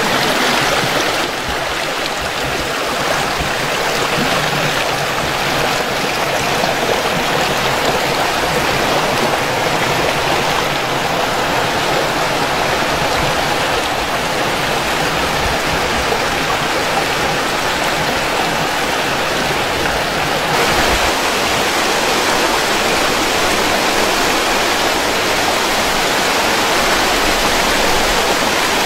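Running water from a small stream and waterfall splashing over rocks: a steady rushing noise. Its tone shifts slightly about a second in and again about twenty seconds in.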